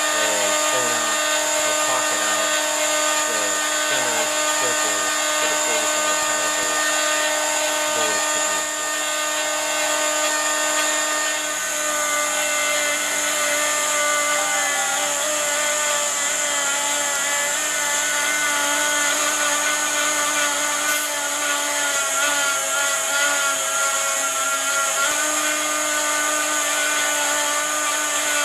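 Stepcraft M.1000 CNC router running a cut: a steady high spindle whine with shifting lower tones from the moving axes. The sound changes about twelve seconds in and changes back about twenty-one seconds in.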